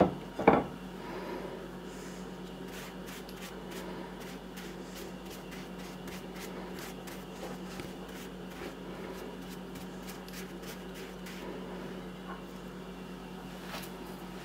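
Two knocks at the start as a large Scarletina bolete is set down on a plate, then a dry bristle brush rubbed across the mushroom cap in many short, soft strokes. A steady low hum runs underneath.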